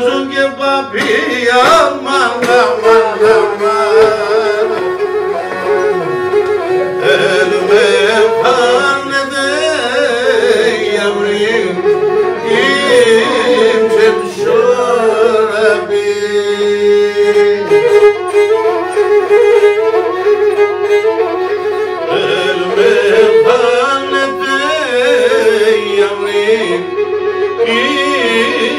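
Pontic lyra (kemençe) bowed in an ornamented folk melody, with a man singing along in a wavering, ornamented Pontic style.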